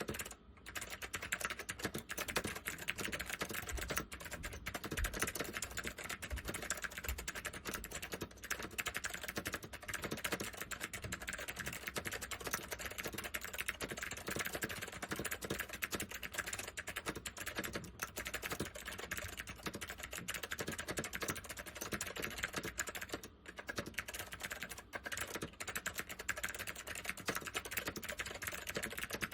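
Steady, fast typing on a Northgate OmniKey 101 mechanical keyboard with waxboiled Alps SKCM White clicky tactile switches, a continuous stream of key clicks with a couple of brief pauses.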